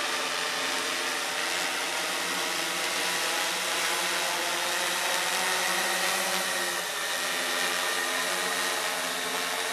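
Tarot X6 hexacopter's six electric motors and 18-inch propellers humming steadily overhead as it descends on an automatic return to launch.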